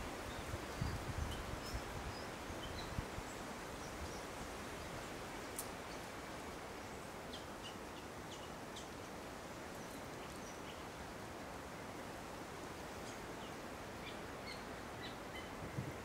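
Wind rustling through the leaves of a swamp forest canopy as a steady hiss, with low gusts buffeting in the first few seconds. Scattered short, high bird chirps sound through it.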